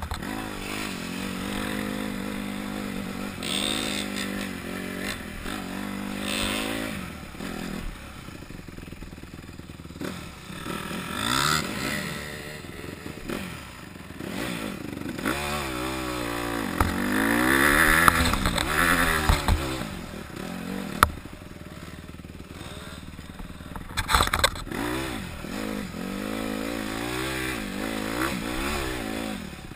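Honda CRF150R dirt bike's single-cylinder four-stroke engine revving up and down again and again as it is ridden off-road, with a stretch of rushing noise about eighteen seconds in.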